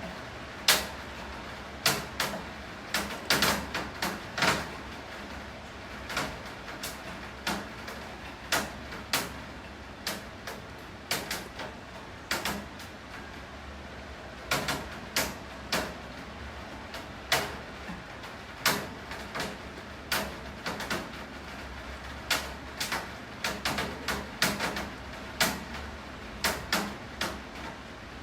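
Steady rain with irregular sharp knocks, one or two a second, of heavy drops dripping onto a hard surface. No thunder is heard.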